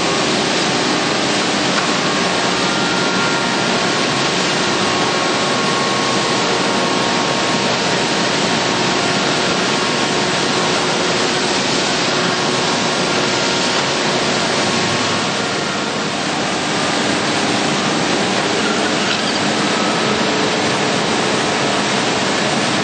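Stemas edge sanding line running: a loud, steady, even hiss with a few faint steady tones, dipping slightly about sixteen seconds in.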